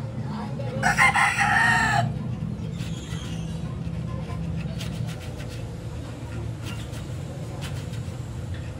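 A rooster crows once, about a second long, beginning about a second in, over a steady low hum; faint scattered taps follow.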